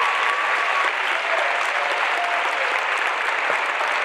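An audience applauding. A long steady high note is held over the clapping until about a second in, then a lower note follows briefly.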